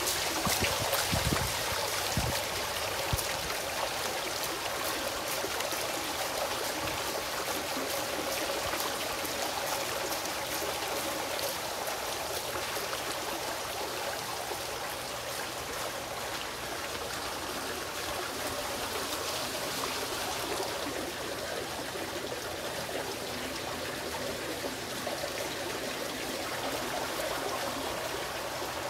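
Steady splashing and trickling of water from a bubbling fountain in a round stone bowl, with a few low bumps in the first couple of seconds.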